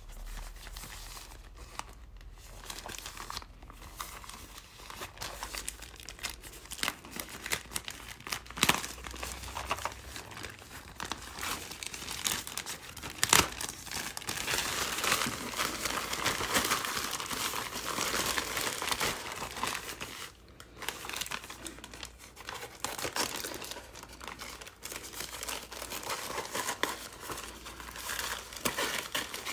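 Plastic courier mailer bag crinkling and rustling as it is handled, pulled open and torn, with many sharp crackles; the crinkling is densest about halfway through. Near the end, scissors cut into the plastic.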